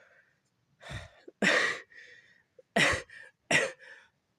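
A person with a bad cough coughing four times, the first cough softer than the other three.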